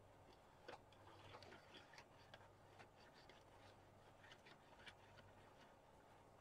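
Near silence with faint, irregular small clicks and taps from a hand-held, liquid-filled plastic magnetic-field visualizer box being tilted and handled.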